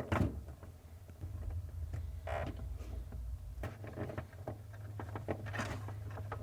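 Faint scattered plastic clicks and rustling as refrigerator ice maker wiring connectors are unplugged by pressing their locking tabs, over a low steady hum.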